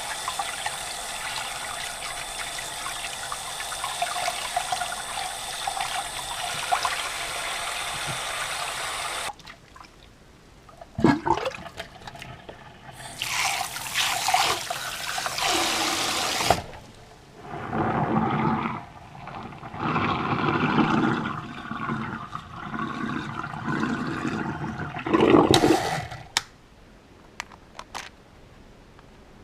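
Tap water running steadily while remote-control parts are washed, shut off about nine seconds in; then shorter spells of running water and splashing with handling knocks, dying away near the end.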